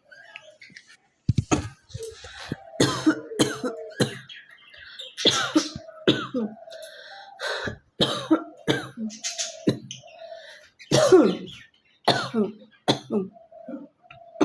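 A woman coughing hard over and over, about a dozen separate coughs with rasping throat-clearing, forcing coughs to bring up phlegm that has not yet collected.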